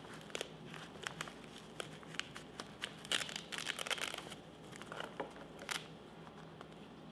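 Handling noise of a harness and carbon spreader bar being fitted: nylon webbing and the loop rubbing and sliding over the bar and its hook, with scattered small clicks and rustles. The rustling is busiest about three to four seconds in, and one sharper click comes late on.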